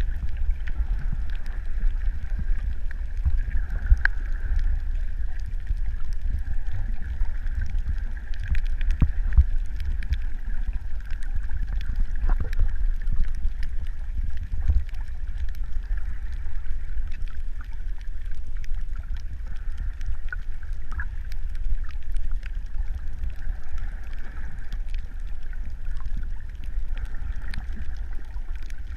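Underwater sound picked up by a camera in the sea: a steady low rumble with a faint even hum above it and scattered light clicks.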